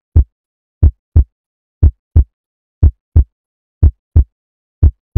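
Heartbeat sound effect: deep lub-dub thumps in pairs, about one pair a second, with silence between.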